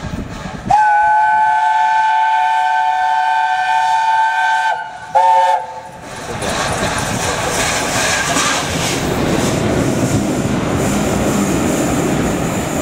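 Whistle of the steam locomotive 60163 Tornado, an LNER Peppercorn A1 Pacific: one long blast, then a short one. Then the train passes close by, its engine and carriages rumbling and clattering over the rails.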